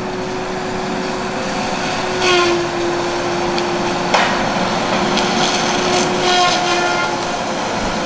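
Tigercat rubber-tired drive-to-tree feller buncher working in pine: a steady engine and hydraulic drone with a constant whine. Sharp cracks and snaps of wood about two seconds in, again around four seconds, and several more near the end, as the saw head fells trees.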